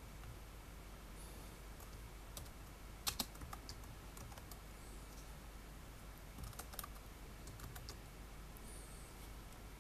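Typing on a Logitech DiNovo Edge keyboard's thin, low-profile keys: quiet, scattered keystroke clicks in short runs rather than a steady stream, with the sharpest pair a little after three seconds and another run around six and a half to eight seconds.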